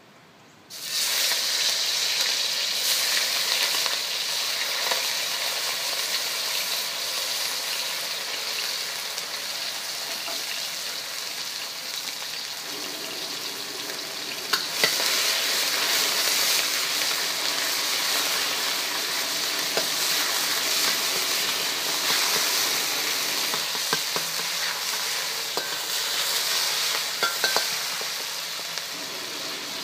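Chicken pieces hitting hot oil in a carbon steel wok and frying with a loud, steady sizzle that starts suddenly about a second in. A few clicks of a metal spatula against the wok are heard as it is stirred.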